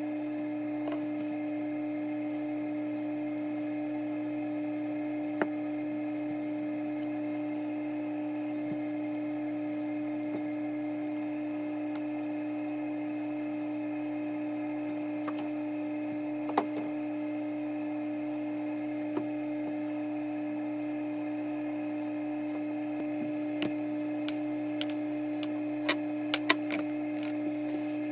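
A steady, unchanging hum with a few sharp clicks, most of them close together near the end.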